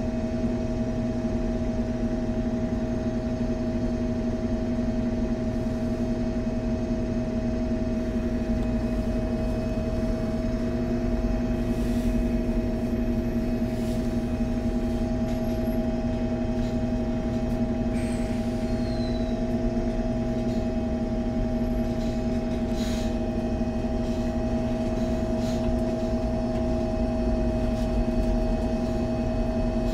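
Onboard sound of an MAN Lion's City G NG 313 CNG articulated city bus with Voith automatic gearbox: a steady engine and drivetrain drone with a constant higher tone over it, holding even with no change in pitch.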